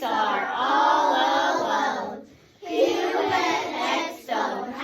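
Children's voices chanting drawn-out diphthong vowel sounds together, each sound gliding in pitch, in phrases broken by short pauses about two seconds in and again near the end.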